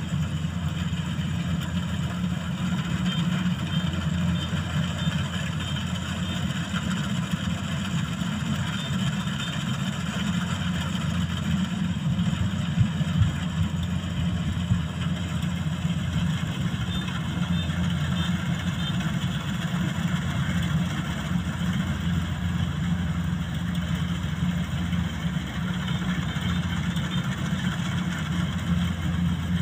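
Rice combine harvester's diesel engine running steadily with the hum of its threshing machinery as it harvests a rice paddy.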